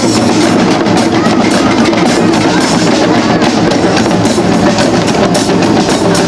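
Protest drum circle: many drums beaten together in a dense, continuous rhythm, with clacking wood-block-like percussion over a crowd.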